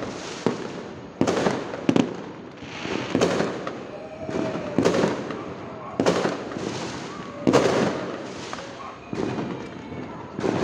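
Fireworks going off: a string of sharp bangs at irregular intervals, one every second or two, each followed by a rumbling echo off the surrounding buildings.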